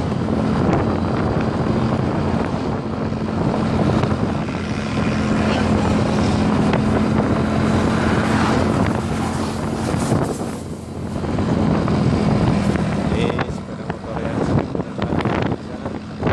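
Motorcycle engine running at a steady cruise with heavy wind noise on the microphone. Near the end the steady engine hum drops away and the sound turns uneven.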